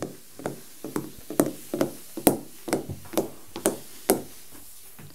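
Footsteps on a wooden parquet floor, about two steps a second, stopping about four seconds in.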